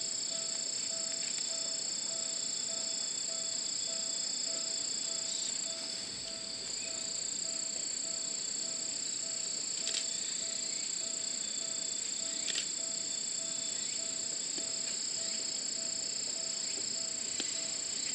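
Steady, high-pitched chorus of late-summer insects droning without a break. A faint tone pulses underneath at about two to three beats a second, and there are a few faint clicks.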